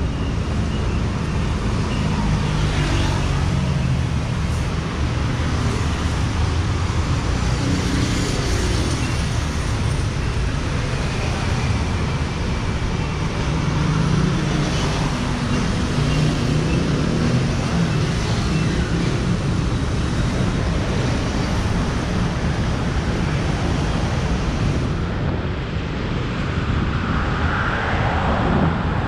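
Steady road traffic on a busy city road: engines of passing motor vehicles and tyre noise.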